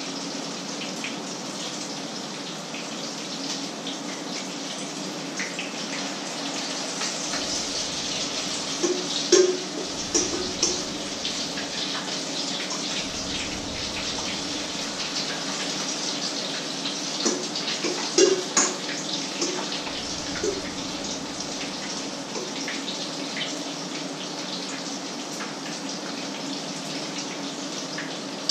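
Patties frying in a pan, sizzling and crackling steadily, with a few sharp metal clinks of a utensil about nine and eighteen seconds in.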